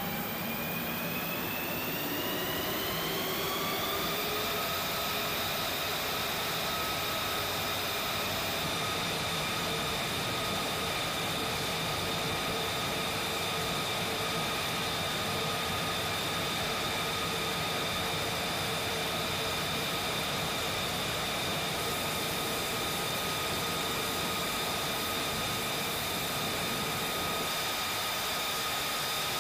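F-35A fighter's Pratt & Whitney F135 jet engine spooling up, its whine rising in pitch over the first few seconds, then holding a steady high whine at ground idle.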